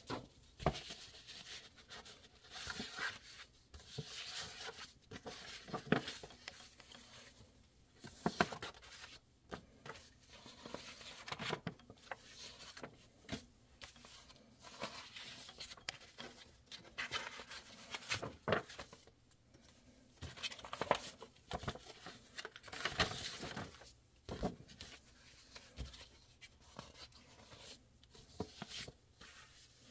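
Sheets of old paper brochures being leafed through and slid over one another on a pile: irregular rustling with soft slaps of paper.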